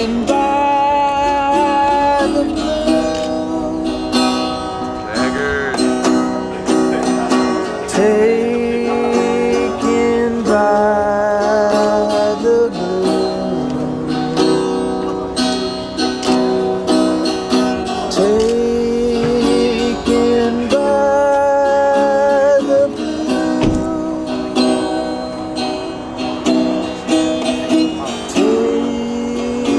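A small acoustic string instrument strummed and picked, with a man singing along in long held notes that often slide up into the pitch.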